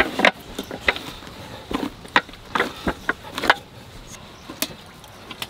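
Flour dough being kneaded by hand in a large metal pot: irregular slaps and squishes as the dough is pressed, folded and pushed against the pot, busiest in the first three and a half seconds and sparser after.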